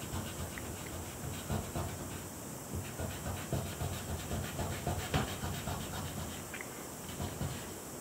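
Fingertip rubbing and pressing on drawing paper laid over a thin layer of ink on plexiglass, in irregular scratchy strokes. The pressure transfers ink onto the back of the paper in an ink transfer drawing.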